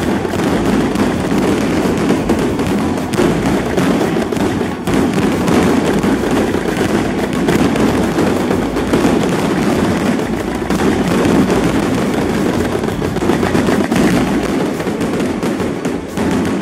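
A dense, continuous barrage of consumer fireworks: many rapid, overlapping bangs and crackles with no break.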